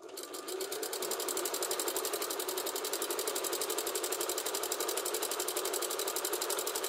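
Electric domestic sewing machine stitching a straight seam through layered pillow fabric at a fast, even rate. It picks up speed over the first second, then runs steadily.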